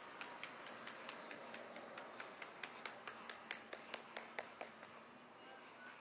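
A quick, regular run of sharp clicks, about four or five a second, growing louder, then stopping about five seconds in, over faint steady background noise.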